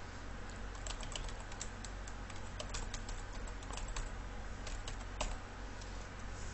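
Computer keyboard keys clicking irregularly as a command is typed, over a steady low hum.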